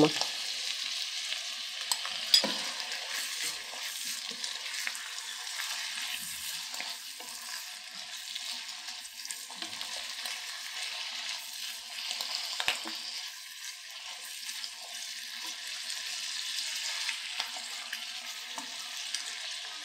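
Beef strips and julienned vegetables sizzling in a nonstick wok as they are stir-fried with a spatula, the soy-sauce marinade just added. A steady frying hiss, broken by a couple of sharp knocks of the spatula against the pan.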